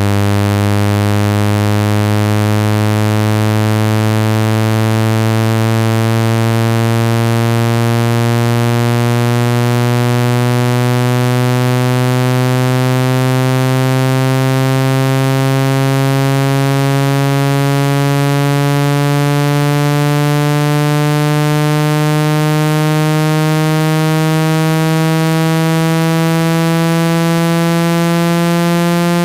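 Synthesized speaker-cleaning tone, meant to be played at full volume to shake water and dust out of a phone speaker. It is a loud, buzzy low tone rich in overtones, with its pitch rising slowly and steadily.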